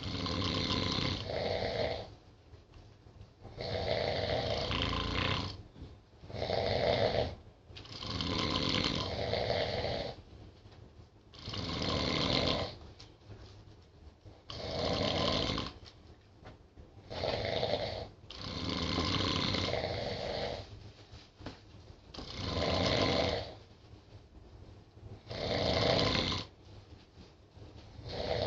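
Two people snoring in their sleep: loud raspy snores lasting a second or two each, coming every two to three seconds at an uneven pace.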